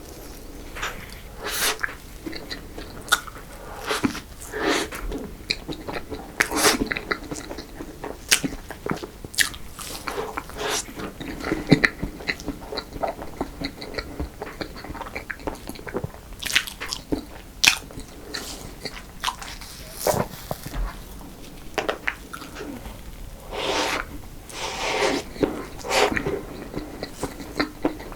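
Close-miked eating of fresh-cream cake and choux desserts: irregular bites and chewing with wet smacks and occasional crunches.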